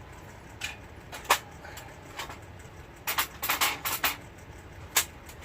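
Sharp clicks and clatters of portable gas camping stoves and cooking gear being handled. The loudest knock comes about a second in, and a quick cluster of clicks follows around three to four seconds in.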